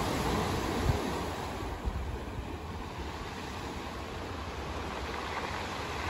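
Atlantic surf washing over a rocky cobble shore: a steady rushing wash, louder at the start and easing off about two seconds in, with a short low thump about a second in.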